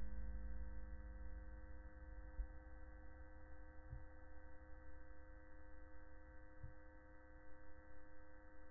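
Faint, steady electronic hum made of several held tones, over a low rumble, with two soft knocks about four and six and a half seconds in.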